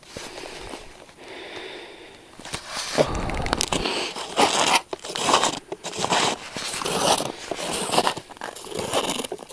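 Snowshoe footsteps crunching on packed snow, about one step a second, growing loud about two and a half seconds in.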